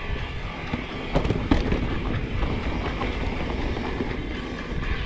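Specialized Stumpjumper Evo mountain bike rattling and clattering as its tyres roll fast over dirt and rock on a descent, with a few sharp knocks about a second in.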